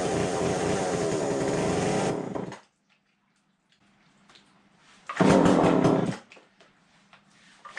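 Husqvarna 136 chainsaw's two-stroke engine running steadily, then stopping abruptly a little over two seconds in. Two short loud noises follow later.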